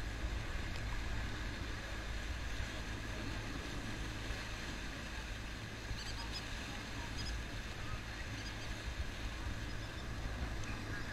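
Small motorboat under way: a steady low drone of its motor mixed with rushing water and wind.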